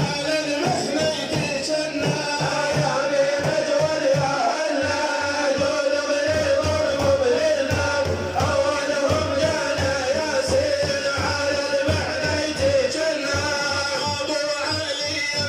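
A male singer chanting a devotional praise song to the Prophet Muhammad, holding long wavering notes over a steady drum beat.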